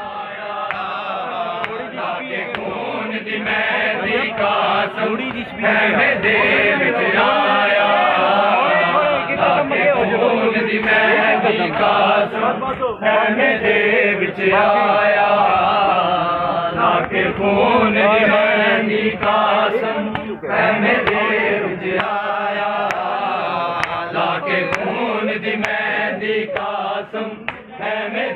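Large crowd of men chanting a Shia Muharram mourning chant (noha) in unison, with sharp slaps of chest-beating (matam) scattered among the voices.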